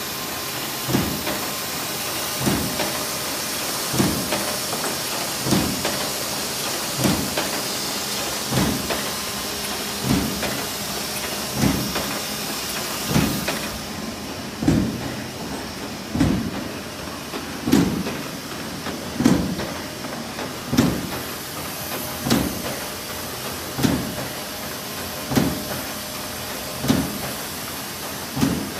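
KAMA TS 74 automatic flatbed die cutter running in production, its platen closing with a sharp thump about once every one and a half seconds, over a steady hiss that is stronger in the first half.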